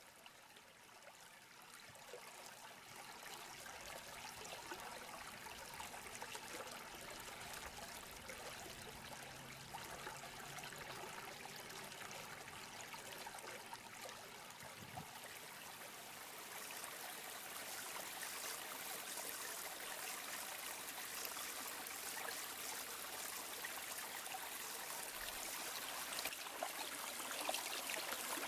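Small upland brook running and trickling over stones, a steady rush of water that grows gradually louder.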